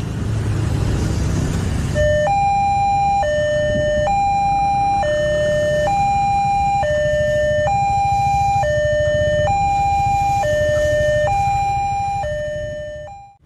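Indonesian railway level-crossing warning alarm starting about two seconds in, an electronic two-tone signal switching between a higher and a lower tone just under once a second, over the rumble of passing motorcycles. It sounds as the crossing barrier comes down for an approaching train.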